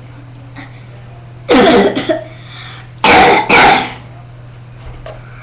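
A person coughing hard, brought on by hairspray: one loud cough about a second and a half in, then two more close together about three seconds in.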